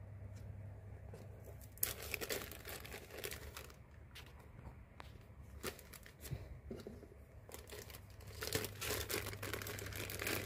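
Clear plastic bag crinkling and rustling as it is handled, in two bursts of crackling, about two seconds in and again near the end, with scattered small clicks between.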